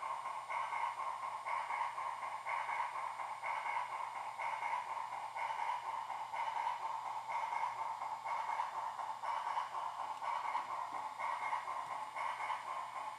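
Sound effects of a model steam locomotive: a pitched, pinging sound repeating steadily about twice a second.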